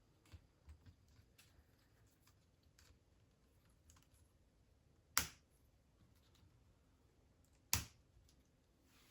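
Faint plastic clicks from K'Nex parts being handled, then two sharp, loud clicks, one about five seconds in and another a little under three seconds later.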